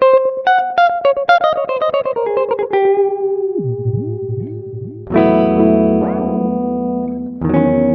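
Electric guitar played through a Moody Sounds Mushroom Echo pedal: a quick run of notes stepping down in pitch with repeats, then a few swooping dips in pitch, then two strummed chords, about five seconds in and near the end, left ringing.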